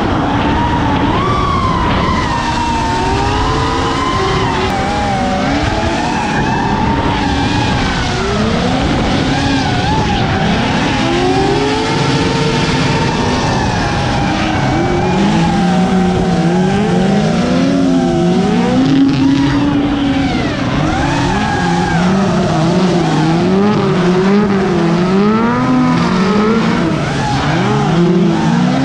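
Two drift cars, a Mazda RX-7 FC and a Nissan S-chassis, drifting in tandem. Their engines rev up and down over and over, along with tyre squeal, and the revving becomes a steady, regular rise and fall in the second half.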